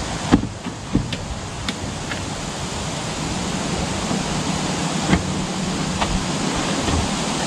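Steady wind noise on the microphone, with a few short knocks and scrapes from pulling a waterlogged floor carpet out of the car's footwell, mostly in the first couple of seconds and once more about five seconds in.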